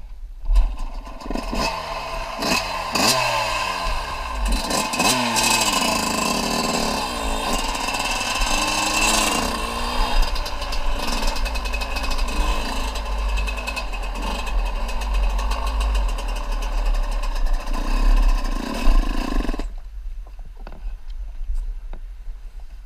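A small off-road vehicle engine revving hard, its pitch climbing again and again in the first few seconds, then running on at speed under heavy wind rumble on the microphone. About twenty seconds in, it drops away to a much quieter background.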